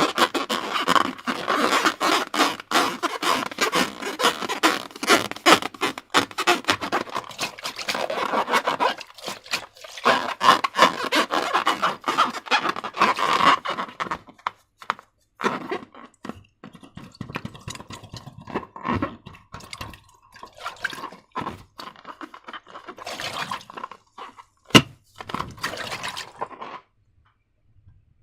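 Slime being squished and worked by hand, a dense run of wet crackling and popping that thins out about halfway into sparser squelches, with one sharp snap about three-quarters of the way through.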